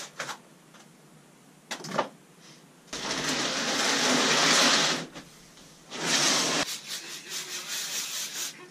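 A few knocks from the packing, then a large cardboard bike box scraping across the floor for about two seconds. Near the end comes a short aerosol spray onto a rag, followed by scratchy rubbing.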